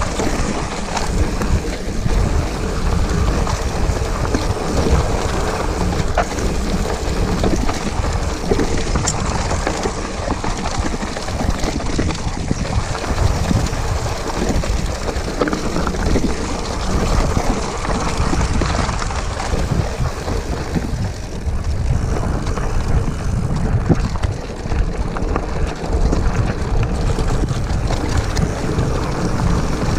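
Hardtail mountain bike descending a rocky dirt trail: continuous rumble of knobby tyres over gravel with frequent rattles and knocks from the rigid frame and components jolting over stones, and wind buffeting the microphone.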